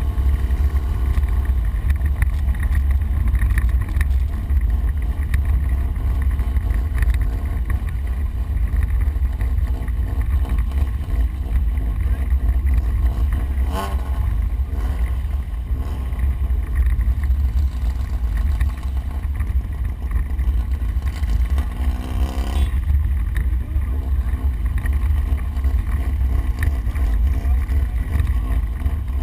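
Ford Explorer prerunner heard from inside the cab, its engine running under load with a heavy, steady low rumble as it drives an off-road course. Two brief louder jolts stand out, about halfway and about three-quarters of the way through.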